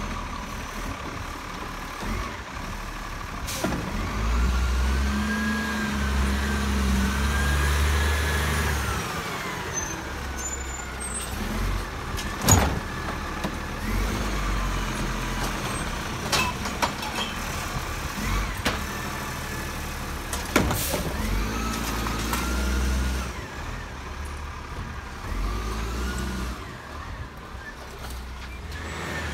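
Automated side-loader garbage truck working its hydraulic pickup arm: the diesel engine revs up in spells to drive the hydraulics, with a whine that rises and falls, and several sharp knocks as the cart is grabbed, tipped into the hopper and set down. Near the end the truck pulls away.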